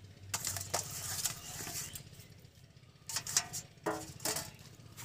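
A hand spreading and patting a heap of small wet mourala fish on a banana leaf: soft wet rustling and light patter in several short bursts.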